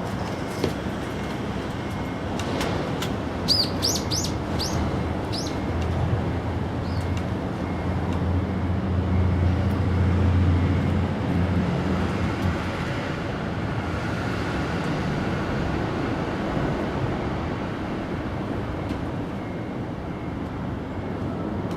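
A small bird chirping, a quick series of about five short high notes a few seconds in and one more shortly after, over steady traffic noise; a low engine hum swells and fades in the middle.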